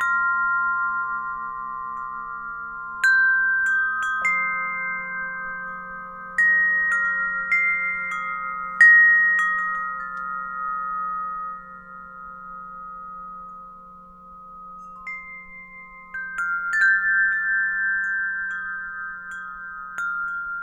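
Gregorian alto wind chimes ringing. The metal tubes are struck irregularly in small clusters, and each clear note rings on and slowly fades, over a faint low steady hum. There is a quieter lull in the middle.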